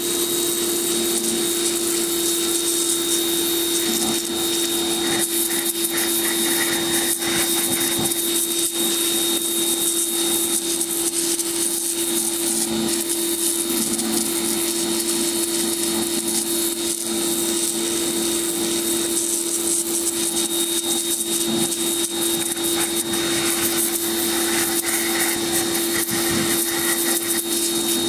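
Electric pressure washer running steadily while cleaning an alloy wheel: a steady motor hum under the hiss of the water jet.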